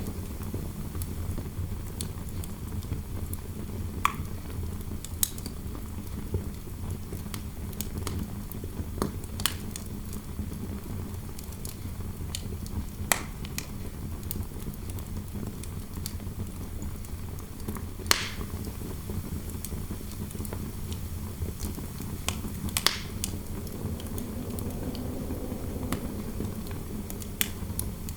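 Fireplace fire crackling, with irregular sharp pops scattered through it, over a steady low rush of interior wind.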